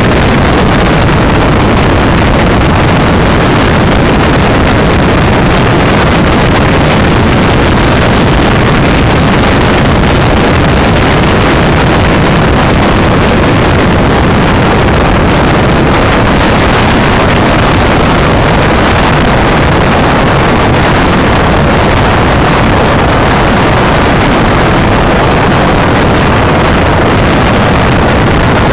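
Loud, steady rush of wind over the onboard camera's microphone and tyre-on-tarmac noise from a small battery-electric Greenpower race car travelling at speed, with no engine note.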